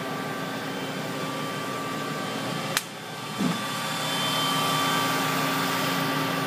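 Steady hum of running shop machinery with several steady tones. A sharp click comes just under three seconds in, and the hum is a little louder afterwards.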